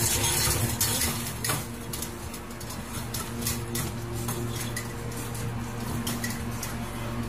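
Metal food bowl clinking and rattling against a wire cage as an animal eats from it and paws at it: many small clinks over a steady low hum.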